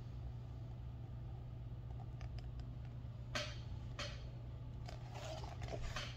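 A hardcover picture book being handled: a few soft clicks and two sharper knocks as it is held up, then paper rustling as a page is turned near the end. A steady low hum runs underneath.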